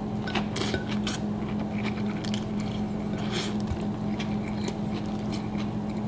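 Chewing a mouthful of lettuce wrap: irregular crisp crunches and wet, squishy mouth sounds from the lettuce leaves and filling. A steady low hum runs underneath.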